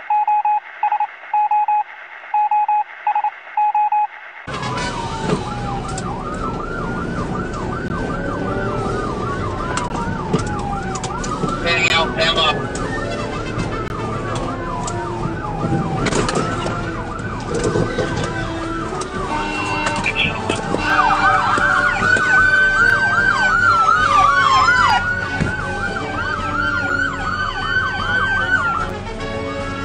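A string of short electronic beeps opens, then a police car siren takes over, switching between slow rising-and-falling wails and a fast yelp, over road noise from the moving patrol car. A brief rattle comes about twelve seconds in.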